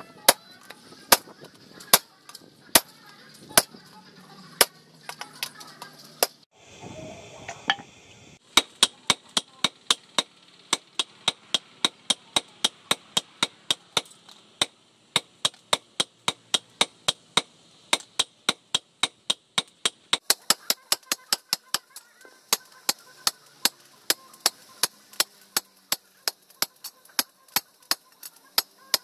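Hammers striking a red-hot leaf-spring steel cleaver blank on a steel post anvil, sharp ringing blows. About one blow a second at first, then a short break about six seconds in, then quick steady blows about three a second.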